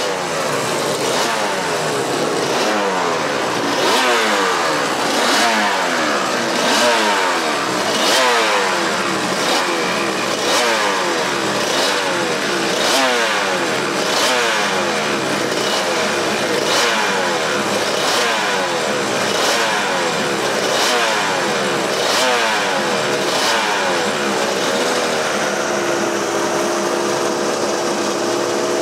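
Race motorcycle engines being revved in repeated throttle blips, the pitch climbing about every second and a half. About 25 seconds in, a steady engine note settles in.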